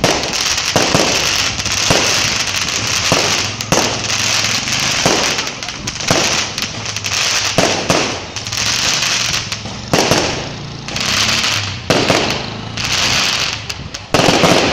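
Aerial fireworks going off in quick succession: sharp bangs about once a second over a continuous crackling hiss.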